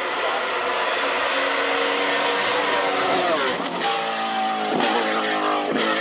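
Hillclimb race car engine running at high revs. About halfway through, its pitch drops steeply, then climbs again in a few rising steps, with short sharp breaks between them.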